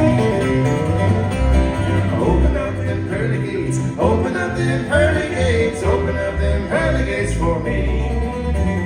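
Live acoustic bluegrass music, with flatpicked steel-string acoustic guitars over a steady, pulsing upright bass line.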